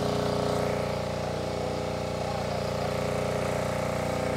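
Motor-driven water pump running steadily, a constant drone as it pumps the muddy pond dry through a suction hose and foot valve.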